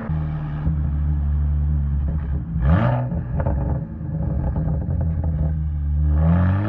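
BMW 1M Coupe's twin-turbo inline-six running through a full Akrapovic titanium exhaust. It holds steady at low revs, gives a short rise in revs nearly three seconds in, then revs climb strongly near the end as the car accelerates.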